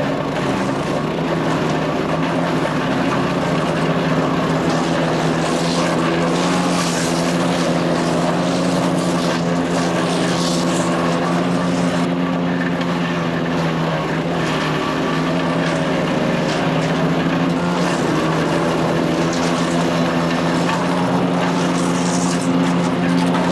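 Wood chipper shredder's Kohler CH440 14 HP single-cylinder engine running steadily at working speed, with the cutting drum's whir and brief louder crackling flare-ups several times as wood goes through the chipper.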